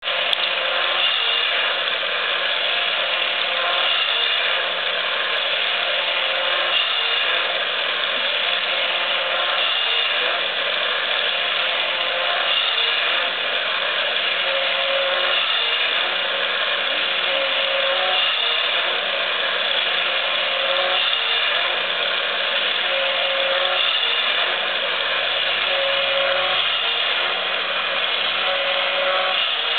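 Yonezawa 'Jumbo the Bubble Blowing Elephant' battery-operated tin toy running, its motor and gear mechanism whirring steadily as it works the trunk up and down into the soap cup. A short higher note recurs every few seconds.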